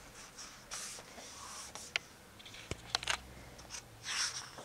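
Soft paper rustles and a few light clicks of a hardcover picture book being handled, with the largest rustle near the end as a page is taken up to be turned.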